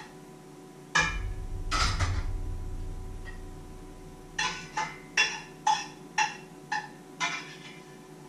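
Two heavy knocks on the kitchen counter with a low rumble that fades, then about seven sharp taps at roughly two a second, each with a short ringing tone, like a utensil knocking against a metal mixing bowl.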